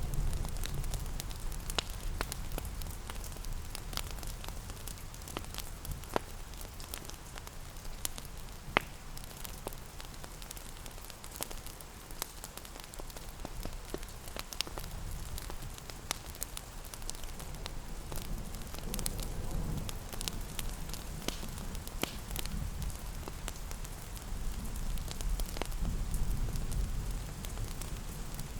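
Fireplace crackling with scattered sharp pops, layered over steady rain. A low rumbling swells twice, around the middle and again near the end.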